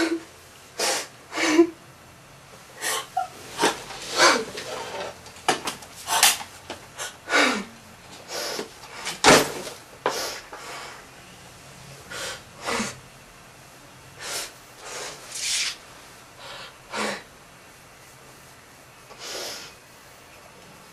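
Scattered short rustles, taps and scrapes of small objects and papers being handled, about two or three a second at first and thinning out toward the end, with quiet room tone between.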